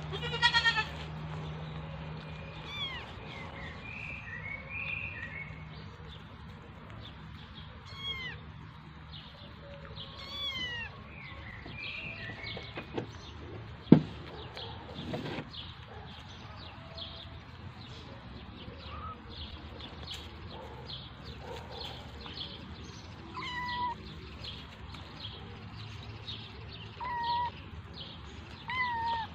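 Kittens meowing in short, high calls now and then: one loud call at the start and three more near the end. One sharp knock about halfway through.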